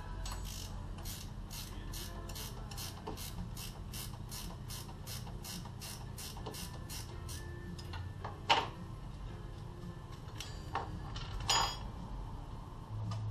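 Ratchet wrench clicking in a steady rhythm, about three clicks a second. The clicking stops about two thirds of the way through, and two sharp knocks of hand tools follow, the first the loudest.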